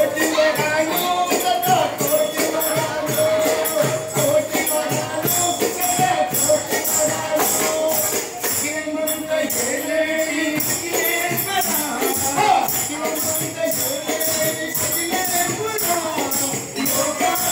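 Devotional music with a melody line over a quick, steady jingling percussion beat.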